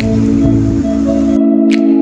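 Background music: held, steady notes with a short sharp hit at the start and another near the end.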